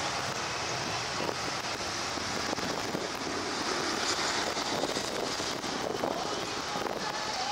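Cessna Citation Sovereign's twin Pratt & Whitney PW306C turbofans heard from the ground as the jet climbs away after takeoff, a steady rushing jet roar.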